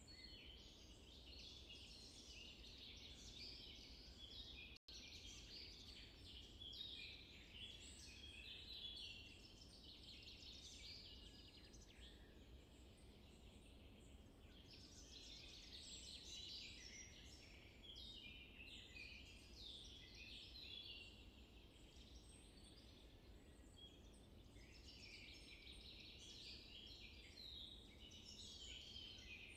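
Faint chorus of small birds chirping and twittering in busy bursts, with a very brief dropout about five seconds in.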